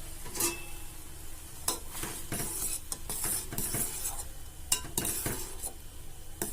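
A spoon stirring in a pan of boiling milk, clinking against the pan several times, as pepper powder is added and mixed in.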